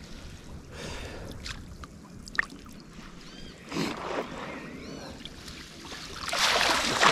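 Water splashing and sloshing, swelling louder near the end, with a few faint high chirps.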